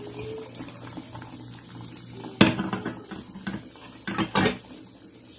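Stainless-steel cooking pot and utensil clinking as squash pieces go into the simmering pot: one sharp metallic clank about two and a half seconds in, then a few lighter knocks near the end.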